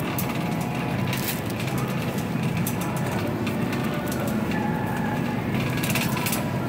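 Shopping cart rolling, its wheels rumbling steadily, with scattered crackles and clicks from the puffer coat's fabric rubbing against the microphone.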